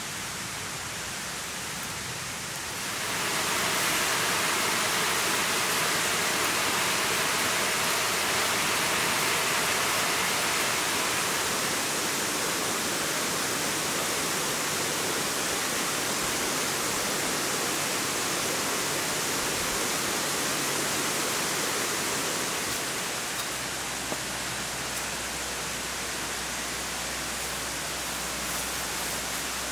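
Steady rush of flowing water, a stream or small waterfall, getting louder about three seconds in and easing a little near the end.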